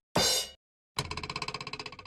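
Drum-kit sound effect: a short cymbal crash, then after a brief pause a fast drum roll starts about a second in.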